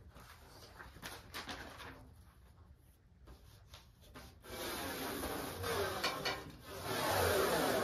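Firewood being bundled: split pieces of wood knock lightly now and then, and from about halfway a louder, continuous rubbing sound sets in.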